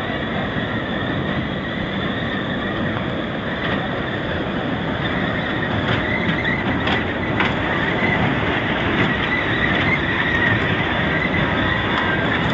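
A children's ride of small cars running around its guide track, a steady rolling rumble with a thin high squeal that grows stronger about halfway through.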